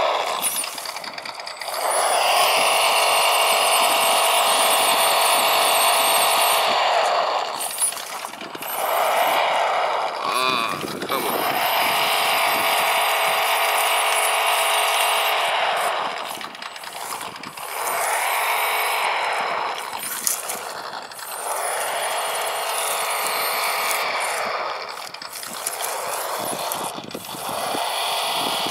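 Simulated truck-engine sound from the small onboard speaker of a 1/18 scale RC rock crawler, mixed with the whine of its small electric drive motor and gears. It comes in about six bursts of several seconds each, the pitch sweeping up as the throttle is pushed and back down as it is released, with short dips between bursts.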